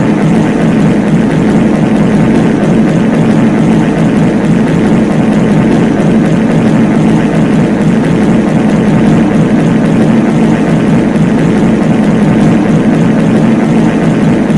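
Loud, continuous wall of many overlapping reverb fart sound effects layered on top of one another, merging into a steady low drone with no separate events standing out.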